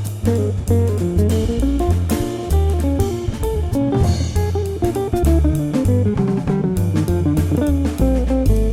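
Background music: plucked guitar melody over bass and a drum kit with a steady beat.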